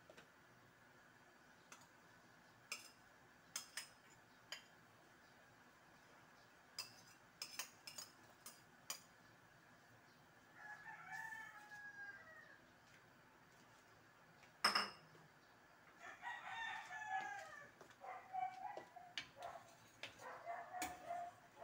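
A rooster crowing, a falling call about ten seconds in and again, longer and broken, from about sixteen seconds on. Light clinks of a spatula and bowl against a stainless pan come between the calls, with one louder knock just before the second call.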